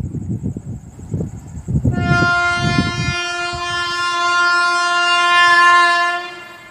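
Indian Railways locomotive horn sounding one long, steady blast of about four seconds, starting about two seconds in and cutting off near the end, over a low rumble.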